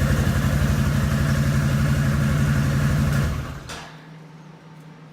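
Honda ATC250SX three-wheeler's single-cylinder four-stroke engine idling with a fast, even pulse, then shut off about three seconds in and running down to stop, with a click as it dies. A faint steady hum remains.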